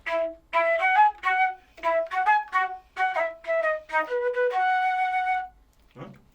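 Flute playing a short melodic phrase of quick detached notes, dropping to a lower note and ending on one long held note.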